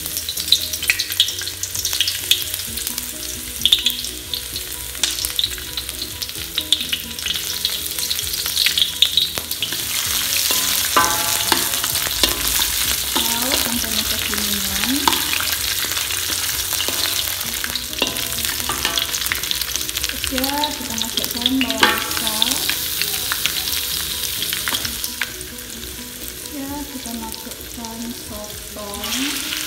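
Sliced onion, garlic, ginger, chilli and lemongrass sizzling in hot oil in a wok, stirred with a wooden spatula that scrapes and taps against the pan. The sizzle eases a little near the end.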